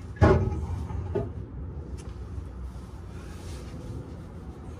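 A loud knock about a quarter second in, with a short ring after it, then a softer knock about a second in, over a low steady rumble.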